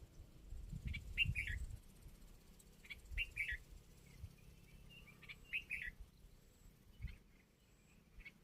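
A bird calling: short phrases of two or three quick, high chirps, repeated about every two and a half seconds. A few low thumps sound underneath, mostly about a second in.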